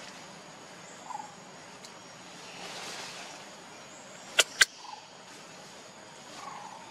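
Outdoor forest ambience: a steady background hiss with a faint high steady tone and a few short chirps. Two sharp clicks in quick succession come a little past the middle and are the loudest sounds.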